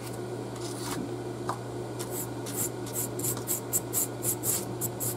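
Small paintbrush dry-brushing wax paint over a rough, bumpy foam surface: quick scratchy strokes, about four a second, starting about two seconds in.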